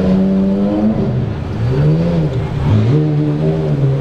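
Supercar engine revving, its pitch rising and falling in about three swells.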